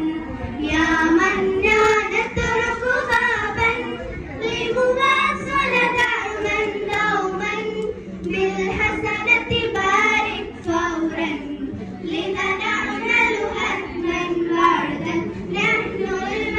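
A group of girls singing an Arabic song together into microphones.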